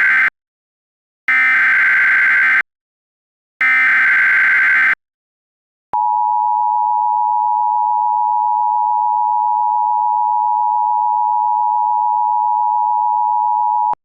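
Emergency Alert System header: the tail of one burst of SAME data screech, then two more identical bursts about a second apart, followed after a short gap by the steady two-tone EAS attention signal held for about eight seconds.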